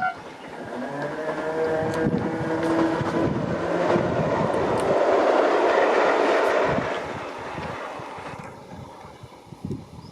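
Electric train passing a level crossing: a motor whine drops in pitch as it comes in, then the cars rush by, loudest about halfway through, and the sound fades over the last few seconds.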